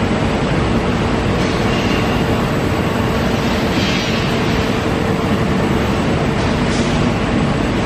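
Loud, steady noise of heavy industrial machinery running, with a constant hum. A brief hiss comes about four seconds in.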